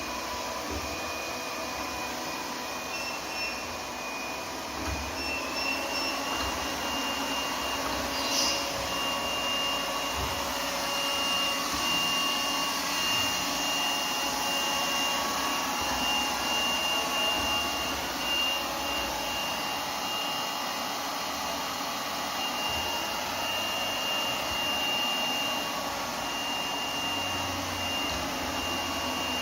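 Lefant U180 robot vacuum cleaner running with a steady suction noise and a thin high whine, which steps slightly higher about five seconds in. A brief click about eight seconds in.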